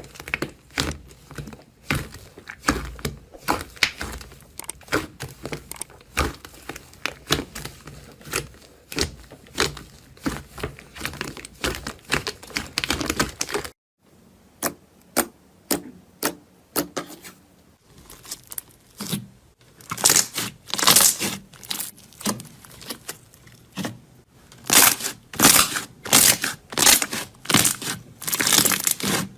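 Slime being squeezed, poked and pressed by hand, giving rapid crackling and popping clicks. A short cut about 14 s in leads to a second clip with louder, crunchier bursts of crackling.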